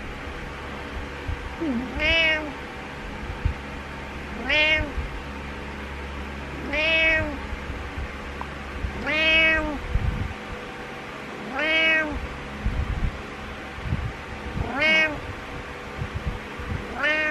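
Domestic cat meowing over and over, about seven drawn-out meows roughly every two and a half seconds, each rising and then falling in pitch: insistent morning wake-up meows.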